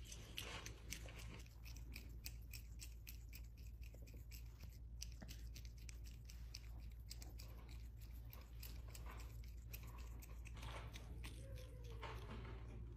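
Faint rapid clicking and crunching from a prehensile-tailed porcupine close to the microphone, with a faint wavering tone near the end.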